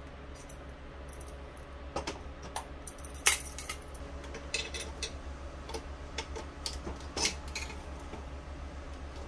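Light metallic clicks, taps and clinks as an aluminium extrusion frame and a PVC pipe are handled and fitted together, with a sharper knock about three seconds in and another near seven seconds. A steady low hum runs underneath.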